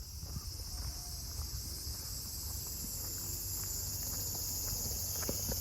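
A steady, high-pitched chorus of insects singing, with no break.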